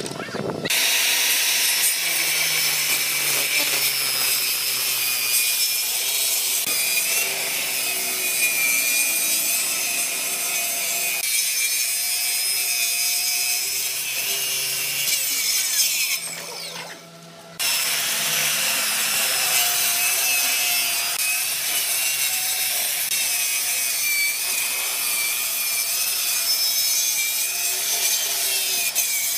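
Makita circular saw ripping through a thick hardwood slab, a loud, steady, high-pitched cutting noise. It breaks off for about a second just past halfway, then cuts on.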